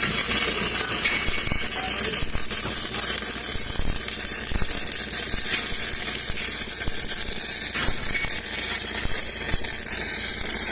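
Electric welding arc crackling and sizzling steadily, with many small pops.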